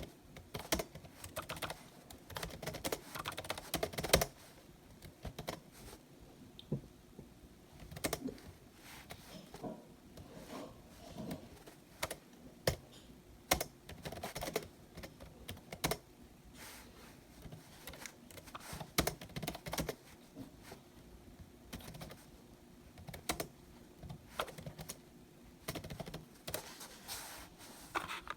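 Irregular clicking and tapping of small hard objects, in short clusters with pauses between.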